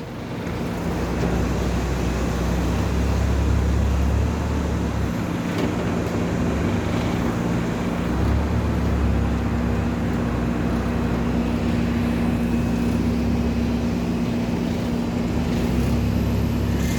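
Engine running steadily, with a constant hum and a low rumble that swells and eases a few times.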